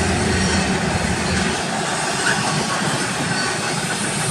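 Double-stack intermodal train's well cars rolling past: a steady noise of steel wheels on the rails.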